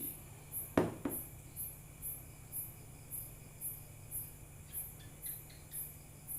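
A cricket chirping steadily, about two high-pitched chirps a second, over a low steady hum. A single sharp clatter cuts in about a second in.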